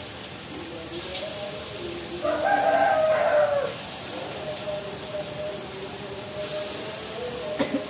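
A rooster crowing once: one long call about two seconds in that drops in pitch as it ends.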